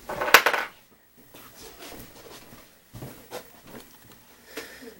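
Glass nail polish bottle and its cap being handled: a loud clatter about half a second in, then a few sharp clinks and taps.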